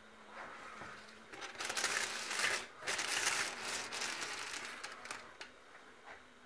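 Crinkling and rustling of wrapping being handled, starting about a second in and loudest in the middle, with a few light clicks toward the end.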